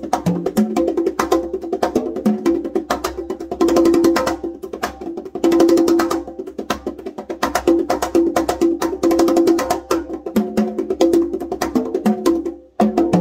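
A set of Latin Percussion (LP) conga drums played with bare hands in a fast, dense rhythm, mixing sharp strikes with ringing open tones. A brief pause near the end leads into a final flurry of strokes.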